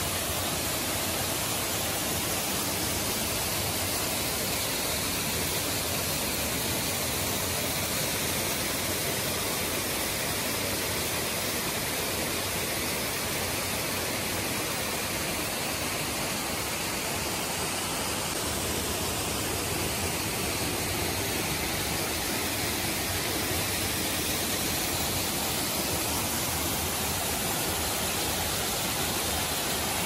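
Small waterfall pouring over rock into a pool and down shallow cascades: a steady, even rush of falling water.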